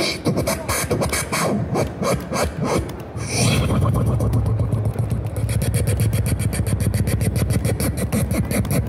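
Amplified live beatboxing through a small street speaker: about three seconds of fast, sharp percussive clicks, then a rising sweep into a very rapid run of hi-hat-like ticks over a deep, steady bass hum.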